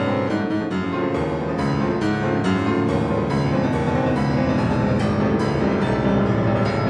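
Solo piano playing loud, dense chords with strongly accented attacks about twice a second. A deep bass note enters about two-thirds of the way in and holds.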